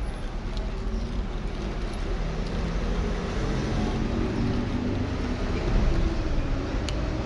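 Road traffic noise, a low rumble that swells about six seconds in.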